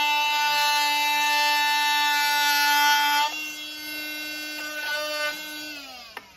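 Oscillating multi-tool buzzing steadily as its blade cuts through a wooden board. About three seconds in the buzz drops in level and shifts slightly in pitch, and near the end the motor winds down with a falling pitch as it is switched off.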